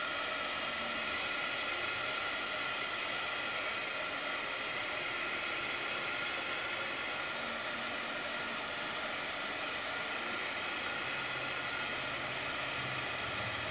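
Handheld craft heat tool running steadily, its fan blowing a constant hiss with a faint steady whine, drying water-spritzed distress ink on a paper tag.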